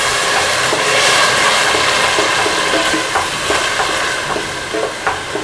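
Chopped onions sizzling steadily in hot oil, stirred with a wooden spatula that scrapes and knocks against the pan, most in the second half.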